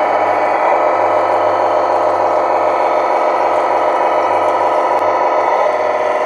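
Tamiya Globe Liner RC truck driving, its MFC-01 sound unit playing a steady simulated diesel engine note through its speaker. The note changes a little near the end.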